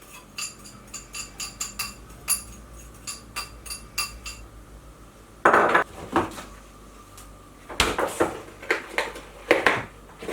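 A metal utensil clinking against a bowl: a rapid run of ringing taps, then louder knocks and scrapes in the second half.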